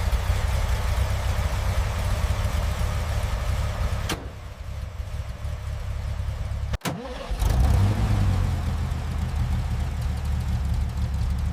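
Porsche 356C's air-cooled flat-four engine running steadily. It eases a little about four seconds in, cuts out for an instant shortly after halfway, then comes back louder.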